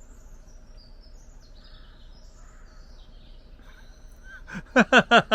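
Faint bird chirps over a low steady background. About four and a half seconds in, a person breaks into loud, rhythmic laughter, about five 'ha's a second.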